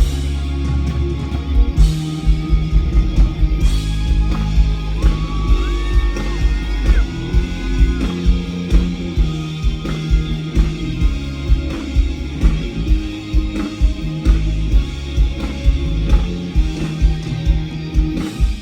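Live rock band playing loud, with electric guitar, bass and drums keeping a steady beat, as heard from the audience.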